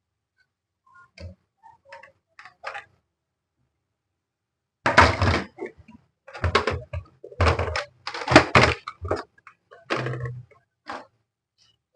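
Plastic knocks and thuds from an LCD monitor being reassembled: a few light clicks, then about five seconds in a quick run of heavier thunks as the casing is handled and fitted together.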